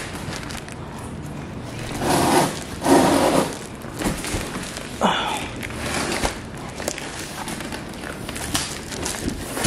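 Handling noise of a large cardboard box being lifted and carried, with footsteps and several louder scuffs and bumps a couple of seconds in.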